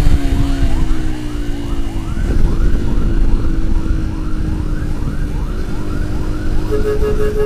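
A siren yelping: short rising sweeps repeated a little over twice a second, over a loud low rumble of traffic and wind. A pulsing steady tone joins near the end.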